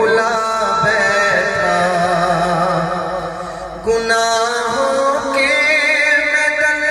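Solo voice reciting a naat, singing long held notes that waver and bend in pitch, with a brief breath and a new phrase starting about four seconds in.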